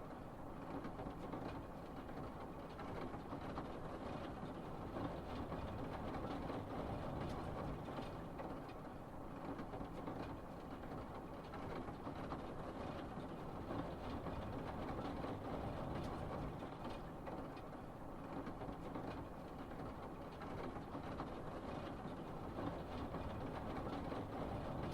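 A car driving in heavy rain: steady low road and tyre noise mixed with the hiss of rain.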